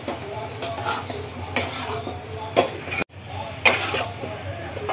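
Noodles being stirred and tossed with soy sauce and vinegar in a hot frying pan, with a light sizzle. The spatula knocks against the pan every second or so.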